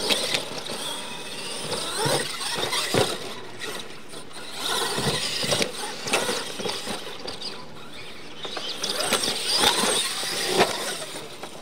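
Radio-controlled monster trucks racing on dirt: high motor whine rising and falling in pitch as they accelerate, tyres scrabbling, with several sharp thumps and knocks as they hit ramps and land off jumps.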